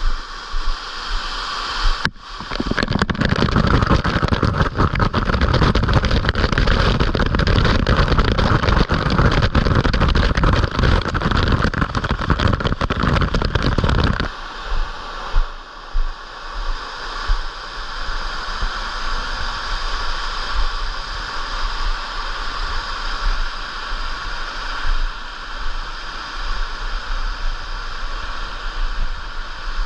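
Rushing water of a jungle mountain stream. From about two seconds in to about fourteen it is much louder, with a heavy low rumble, then it drops back to a steadier, quieter rush.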